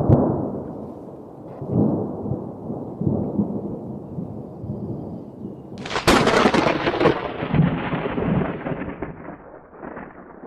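Thunderstorm recording played back through a Bluetooth speaker: low rolling thunder rumbling in swells, then a sharp thunderclap about six seconds in that fades out in a long rumble.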